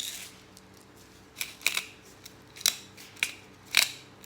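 Utensil clinking and scraping against a bowl in about six sharp, irregular strokes while a salad is stirred.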